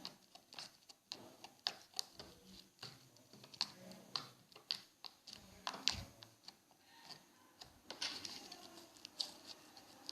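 Homemade glue slime squeezed and worked in the hands, making faint, irregular small clicks and wet pops.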